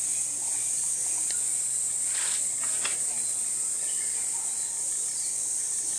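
Insects chirring in one steady, high-pitched drone.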